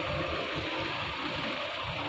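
Truck engine running inside a ferry's vehicle deck, heard as a steady low rumble with harbour background noise.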